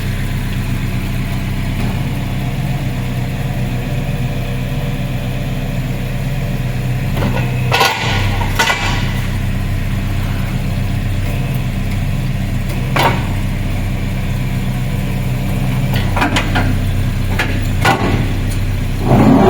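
A vehicle engine idling steadily, with a few separate sharp clanks and knocks at about 8 seconds, 13 seconds, and between 16 and 18 seconds, plus a louder one at the very end.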